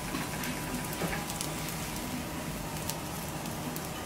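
Butter frying on a hot teppanyaki griddle, a steady crackling sizzle with a few faint clicks.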